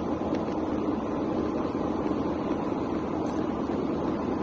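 Steady car noise heard from inside the cabin: an even rumble and hiss from the engine and road, with no separate events.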